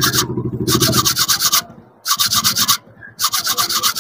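A rudraksha seed is scrubbed hard against a stiff plastic bristle brush to clean the fruit's pulp off the bead. The scratchy strokes come fast and back-and-forth in three short bursts with brief pauses between.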